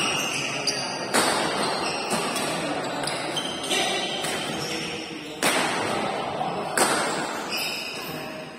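Badminton rackets striking the shuttlecock during a doubles rally: several sharp hits a second or more apart, each echoing in a large hall.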